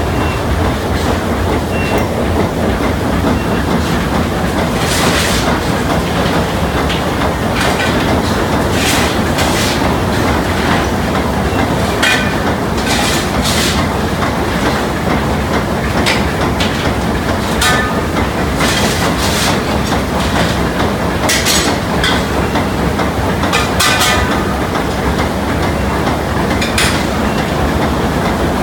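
TSS Earnslaw's triple-expansion steam engine running at speed: a loud, continuous, rhythmic mechanical clatter of reciprocating machinery. Sharp metallic clanks stand out above it every few seconds.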